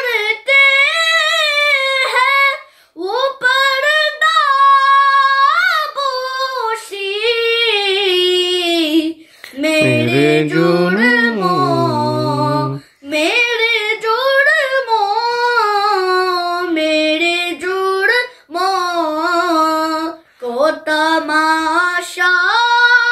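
A boy singing an Urdu naat unaccompanied, drawing out long wavering notes with short breaks for breath. For a few seconds around the middle a much deeper voice sings.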